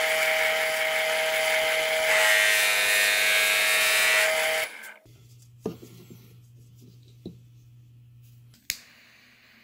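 Drill press running with a Forstner bit boring into peach wood, a steady motor whine under the cutting noise, which gets louder about two seconds in and then stops suddenly about four and a half seconds in. After that a faint low hum with three sharp knocks.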